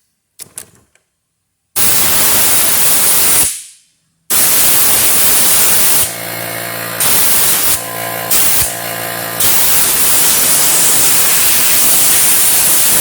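Compressed air blasting dust out of a dirty computer case: one blast that fades out, then after a short pause a long continuous hiss. A pitched hum joins in three times in the middle.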